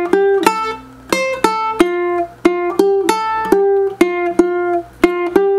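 Ukulele melody picked out one plucked note at a time, about three notes a second, with short breaks between phrases.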